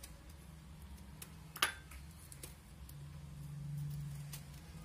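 Faint cutting and clicking of a serrated knife slicing bitter gourd into rings over a glass bowl, with one sharp click about a second and a half in, over a low hum.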